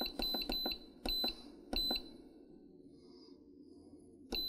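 Cosori 2-quart electric pressure cooker's control panel beeping as its buttons are pressed to set the cook time: a run of short, high beeps in the first two seconds, a pause, then one more beep near the end.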